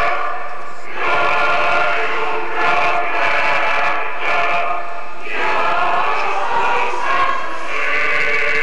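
A choir singing long, held chords in phrases of a second or two with short breaks between them.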